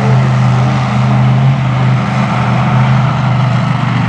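Monster truck engine running loud at a steady, nearly unchanging pitch.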